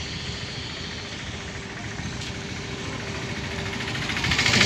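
A vehicle engine running steadily. It gets louder from about four seconds in as a three-wheeled cargo auto-rickshaw drives close by.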